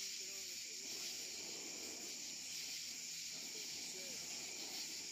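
Faint, steady high-pitched chirring of night insects such as crickets, with faint murmuring of onlookers' voices underneath.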